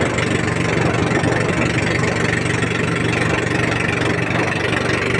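Outrigger fishing boat's engine running steadily at low speed.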